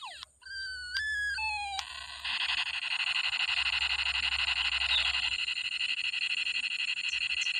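Battery-powered toy space gun playing its electronic firing sound effects: a few short beeping tones stepping down in pitch, then, about two seconds in, a steady, rapidly pulsing electronic buzz that holds on.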